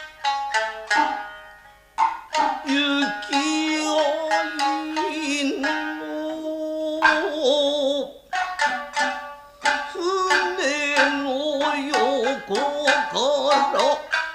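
Nagauta music: shamisen plucking sharp notes, with long, wavering melodic lines held over them from about two seconds in.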